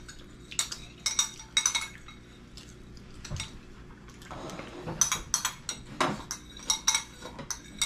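Tableware clinking: a run of short, ringing clinks, densest in the second half, where a metal ladle is knocking and scraping inside a stainless-steel saucepan as food is served.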